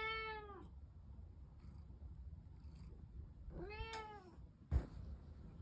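A cat meowing twice, each call rising then falling in pitch: one at the start and another about four seconds in. A short thump follows soon after the second meow.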